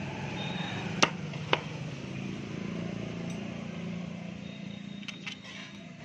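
Two sharp metallic clinks about half a second apart, then a few fainter ticks near the end, as the motorcycle's metal side engine cover and its bolts are handled and fitted, over a steady low hum.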